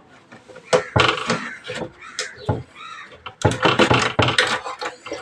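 Plastic wire connectors being worked loose and pulled off an inverter's circuit board: sharp clicks about a second in, a short squeak of plastic between about two and three seconds, then a quick run of clicking and rattling.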